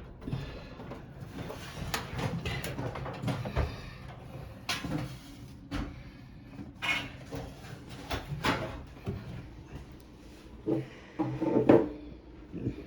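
Irregular knocks, clicks and clunks of hands working on a clothes dryer under repair, with the loudest clunk a little before the end.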